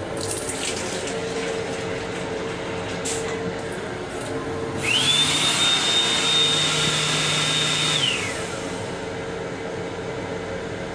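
The sensor-operated sink unit in a Long Island Rail Road M7 car's restroom cycles about five seconds in. It gives a rushing noise with a whine that quickly rises to a steady high pitch, holds for about three seconds, then drops away. The steady hum of the moving railcar runs underneath.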